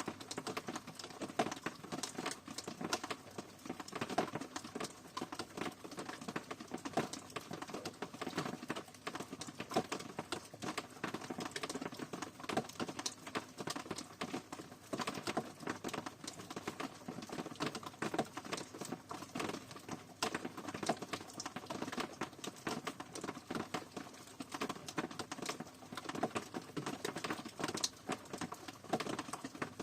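Rain falling steadily, a dense patter of irregular drops ticking and splashing close by.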